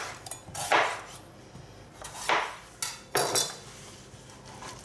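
Knife slicing a green bell pepper on a plastic cutting board: a few irregular knocks as the blade cuts through and strikes the board.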